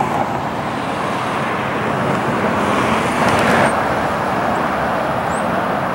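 Steady road traffic: cars driving past on a multi-lane road. It swells louder around three seconds in as a car passes close.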